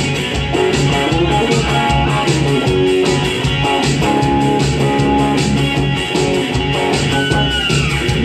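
Instrumental break in a song: a single-cutaway electric guitar plays a melody over a backing track with a steady beat.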